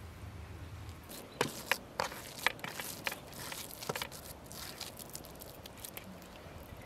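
Hands scooping and squeezing a moist, crumbly filling of crushed walnuts and grated onion, with a run of sharp crackling clicks and squelches about one and a half to four seconds in.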